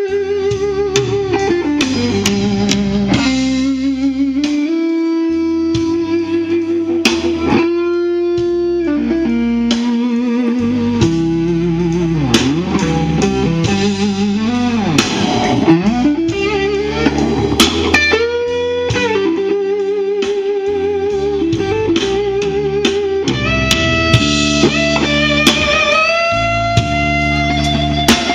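Live blues band playing outdoors through a PA: an electric guitar solo of long held, bent notes with vibrato and quick runs, over drums.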